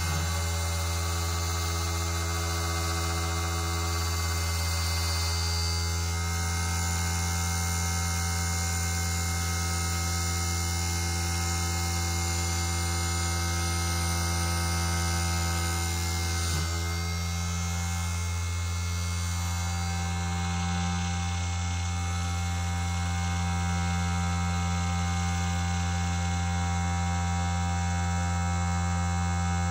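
Small CNC1610-based NC lathe running, a steady electric hum of its motors with several high whining tones over it. There is a click about halfway through, after which the whine changes.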